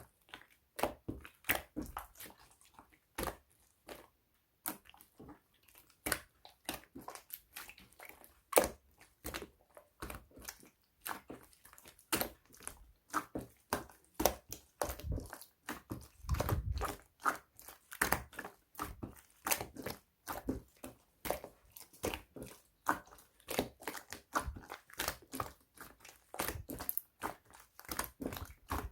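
Slime being played with by hand: many irregular small clicks and pops, several a second, with a duller, fuller squish about halfway through.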